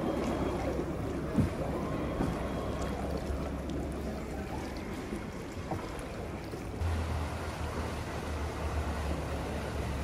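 Water lapping around a gondola moving along a canal, with wind on the microphone and a low steady rumble that gets louder about two-thirds of the way through.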